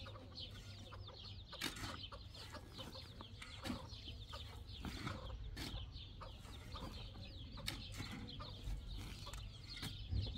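A shovel digging into rocky soil, with several sharp scrapes and knocks as the blade strikes stones. Chickens cluck and chirp throughout.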